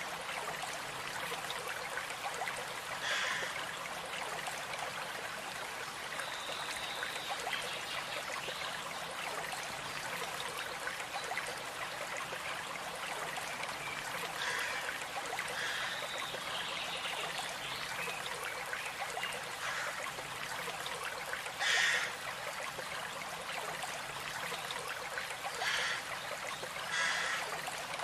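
Stream running and trickling steadily, with a few short high bird calls over it.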